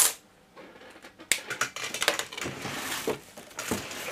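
Tools and small items being handled and moved about on a workbench. A sharp knock comes right at the start, then about a second of near quiet, then irregular clicks, light knocks and rustling.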